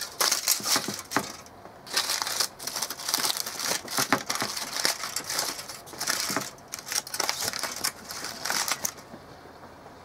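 Crumpled aluminium foil crinkling and crackling as hands pull open a foil pack. It comes in irregular bursts with short pauses and dies down near the end.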